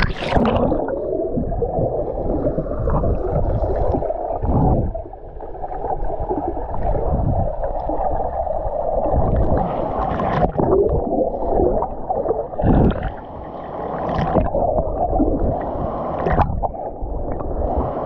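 A splash at the start, then muffled gurgling and bubbling of water heard with the camera underwater as a diver goes down into a deep river pool; high sounds are cut off.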